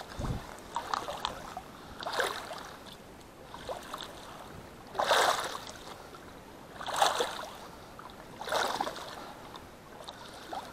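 A person wading through shallow flood water, each stride a swishing splash, about seven of them at an even pace of one every one and a half to two seconds.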